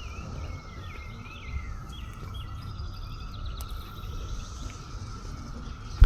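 A steady drone of cicadas chorusing, with birds chirping over it in the first three seconds or so, over a low rumble.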